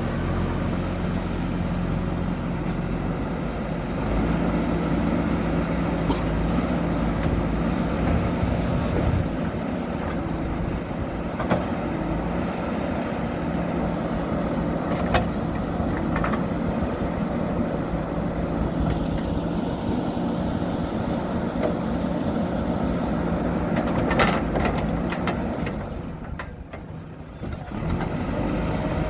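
JCB 3DX backhoe loader's diesel engine running steadily under work, with a few sharp knocks now and then. The engine sound drops away briefly near the end, then picks up again.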